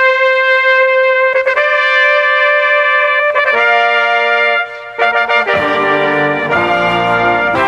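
Several multitracked trumpets playing together, opening on one held note and then splitting into parts that build chords. Lower notes join about five and a half seconds in.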